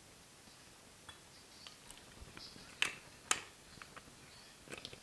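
Plastic drink bottle and its cap being handled after a drink: scattered small clicks and crackles, with two sharp clicks just under three seconds in and about half a second apart.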